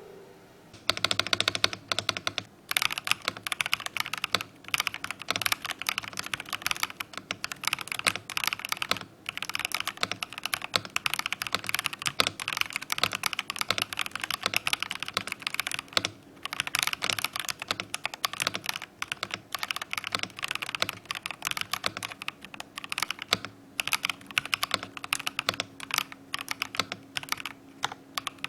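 Darmoshark TOP75 mechanical keyboard being typed on fast, a dense run of key clicks that starts about a second in and breaks off briefly a few times.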